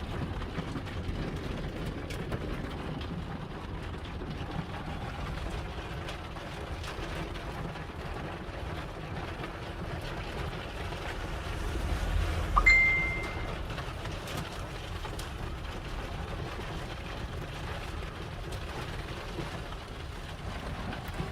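Steady low rumble of wind and rain on a vehicle during a thunderstorm, heard from inside. About twelve seconds in, a low boom swells and fades, with a short high beep at its peak.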